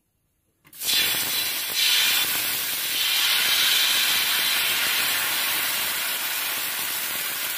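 Thin ragi rava dosa batter sizzling as it is poured from a ladle onto a hot oiled dosa tawa. The hiss starts suddenly under a second in, holds steady and eases slightly toward the end. The strong sizzle shows the tawa is well heated.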